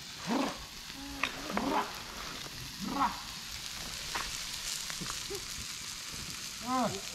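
Food sizzling steadily on a hot barbecue grill, a continuous hiss, with a few short voices over it.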